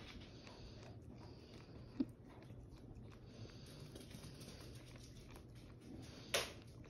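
A dog licking whipped cream from a paper cup: faint, continuous wet licks and smacks, with a brief louder noise near the end.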